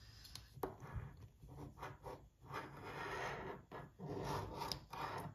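A coin scraping the scratch-off coating from a lottery ticket in a run of short rasping strokes.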